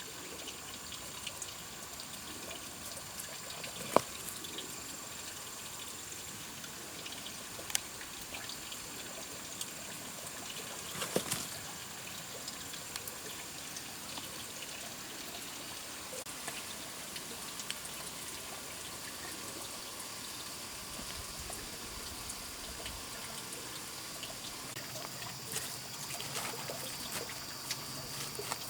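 Water trickling steadily, with a few sharp knocks standing out above it, the loudest about four seconds in and again about eleven seconds in.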